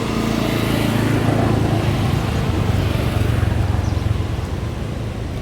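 A vehicle engine running steadily with a low hum, growing a little louder in the middle and easing off toward the end.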